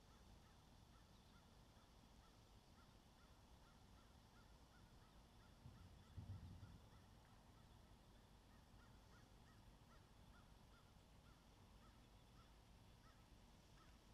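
Near silence: a faint, high call repeating about four times a second, with one dull knock about six seconds in.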